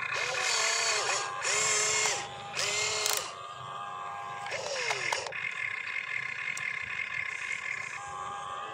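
Electric motors of an RC excavator whining in three short bursts in the first three seconds, each spinning up, holding and winding down, as the boom lifts and the cab swings round, then one more whine that falls away about five seconds in.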